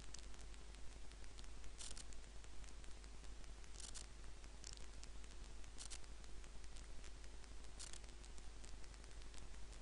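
Faint hiss crackling with many small clicks and a few short scratchy bursts, over a low steady hum.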